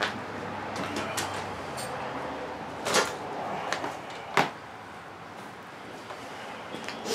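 Handling noise: two sharp knocks about a second and a half apart over a steady background hiss, with a faint low hum in the first second and a half.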